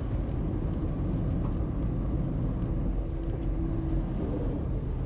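Steady low rumble with scattered faint ticks.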